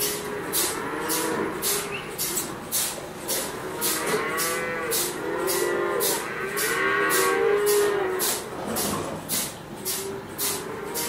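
Several dairy cows mooing, their calls overlapping, over a steady rhythmic hissing pulse about twice a second from the parlour's milking machines.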